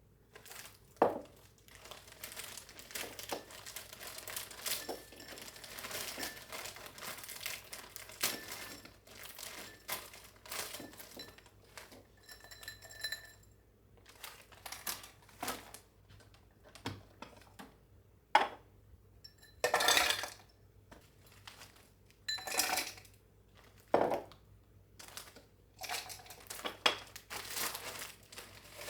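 Close handling noises: irregular crinkling and crackling with light clinks and knocks of hard objects, some louder, and a short ringing tone about twelve seconds in.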